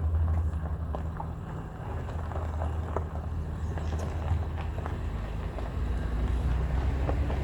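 Low, steady rumble of a running vehicle, with a few faint clicks.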